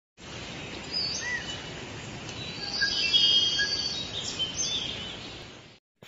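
Forest ambience: several birds chirping and giving short whistled calls over a steady background hiss, the calls busiest about halfway through, fading out just before the end.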